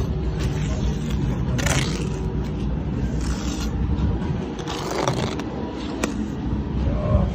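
A steel trowel scraping wet mortar along the top of concrete blocks, a few short scraping strokes over a steady low rumble.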